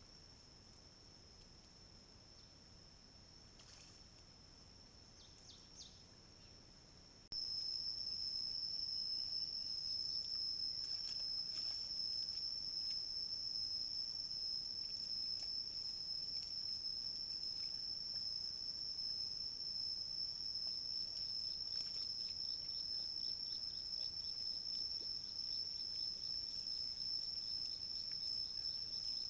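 A steady high-pitched insect drone, jumping louder at a cut about seven seconds in. Faint scattered clicks and rustles from wild boar and piglets rooting and walking in the dirt sit over it.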